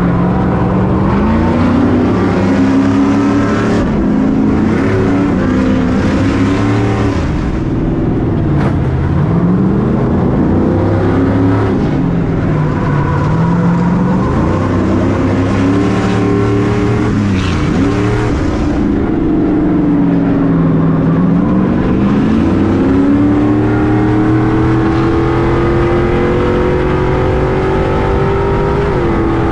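A Stadium Super Truck's V8 engine at racing speed, its revs rising and falling again and again as it accelerates and lifts for corners. Near the end it climbs steadily for several seconds before dropping.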